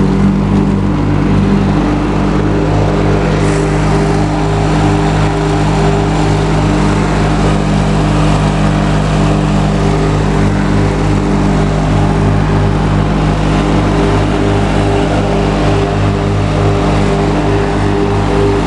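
Engine of a John Deere ride-on lawn tractor running at a steady speed, loud and close.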